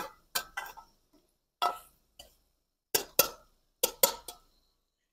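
Metal ladle clinking and scraping against a metal cooking pot as beef liver is stirred: about ten short clinks in small clusters of two or three.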